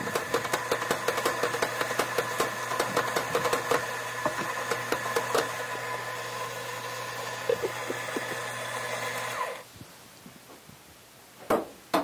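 Electric burr coffee grinder running, a steady motor hum with a dense crackle of espresso beans being ground into a portafilter; the motor stops abruptly about three-quarters of the way through. A single sharp knock near the end.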